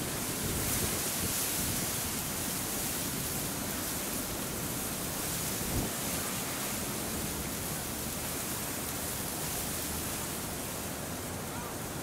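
Strong typhoon wind rushing and buffeting against the microphone, a steady hiss with an irregular low flutter. There is one brief thump a little before six seconds in.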